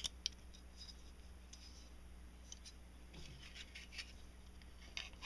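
Faint small clicks and light scrapes of Glock 23 pistol parts being handled as the guide rod spring is fitted into the slide, with one sharp click right at the start.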